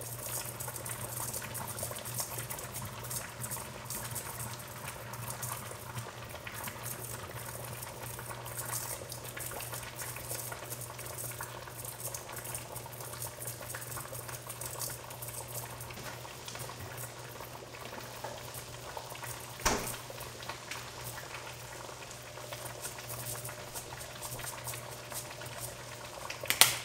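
Wet, saucy fresh kimchi (geotjeori) being lifted with chopsticks from a stainless steel container into a ceramic bowl: a steady moist crackling and squelching over a constant low hum, with a sharp click about two-thirds through and a louder one near the end.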